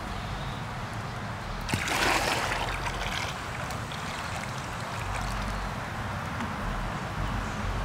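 Muddy water poured out of a plastic five-gallon bucket onto dirt and into a small hole, splashing. A loud gush starts about two seconds in, then eases into a steady pouring trickle.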